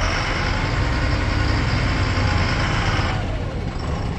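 Loaded truck's diesel engine running as the truck crawls along at low speed, a steady low rumble with a hissing layer on top that eases about three seconds in.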